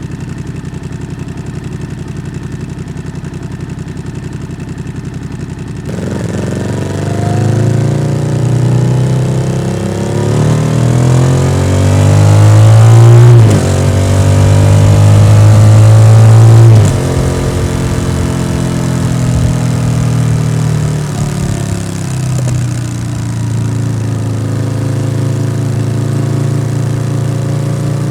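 Yamaha XSR700's 689 cc parallel-twin engine breathing through an SC-Project aftermarket exhaust. It runs at a steady low note for about six seconds, then the sound changes abruptly and the revs climb hard twice, each climb cut off by a quick drop at an upshift. After that it settles into steadier running with smaller rises and falls.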